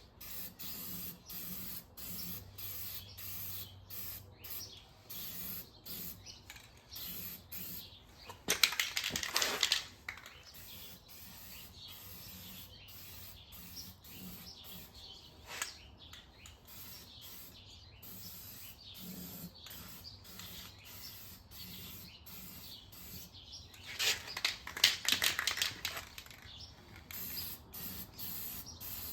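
Aerosol can of gloss black high-heat spray paint hissing in short repeated bursts as the wheels are sprayed. Twice, about nine seconds in and again near twenty-five seconds, there is a louder stretch of rapid rattling clicks.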